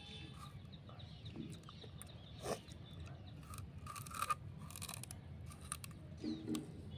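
Raw sugarcane being bitten and chewed, with a few sharp crunching cracks as the fibrous cane is torn, loudest around the middle.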